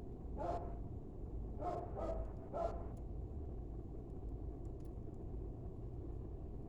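Wood fire crackling with a few faint pops over a steady low rumble, while a dog barks four short times in the first three seconds.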